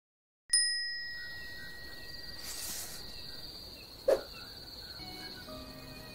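A single sharp bell-like ding about half a second in, ringing out over a second or so. A steady high cricket trill follows, with a second short hit about four seconds in and low sustained music tones beginning near the end.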